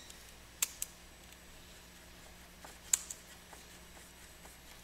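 Quiet room tone with two quick pairs of faint, sharp clicks, the first pair under a second in and the second about three seconds in.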